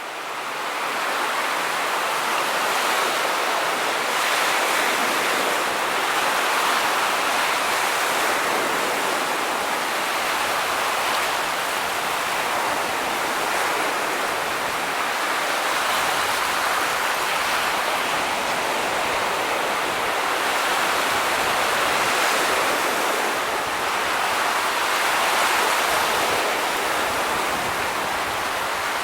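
Ocean surf as a continuous hiss of waves, fading in at the start and then holding steady with gentle, slow swells in level.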